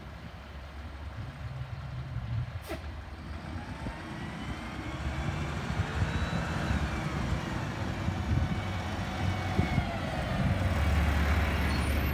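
Mack LR rear-loader garbage truck's engine running as the truck creeps up the street and pulls alongside, growing steadily louder, with a whine that rises and falls in pitch. A short sharp sound comes about three seconds in.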